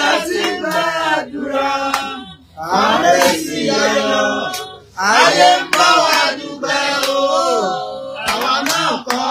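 A woman crying out with emotion in long wailing phrases that rise and fall, with a few sharp hand claps.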